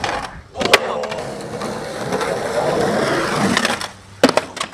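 Skateboard on rough concrete: a sharp clack of the board about a second in, a steady rolling and scraping rumble, then a few sharp clacks of the board near the end as the skater tries a 5-0 grind on a concrete ledge.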